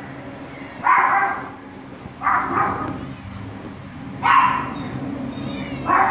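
A dog barking: four single barks about one and a half to two seconds apart, over a steady low hum.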